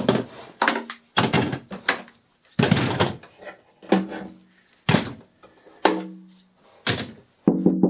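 Several hollow knocks on a carbon fibre trunk lid, irregularly spaced, each ringing briefly. Near the end, music with quick plucked guitar notes comes in.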